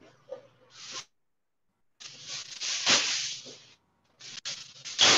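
Aluminum foil rustling and tearing off the roll in two bursts of crinkling, with a sharp click between them.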